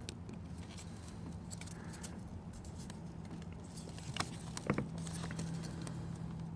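A few faint plastic clicks and taps as hands work a stuck electrical connector clip on an ignition coil pack, over a low steady hum. Two of the clicks fall a little after the middle.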